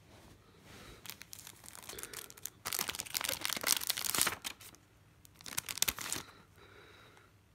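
A clear plastic sleeve crinkling as hands peel it open and slide a CD case out, in two spells: a longer stretch that builds over the first few seconds and a shorter one near the end.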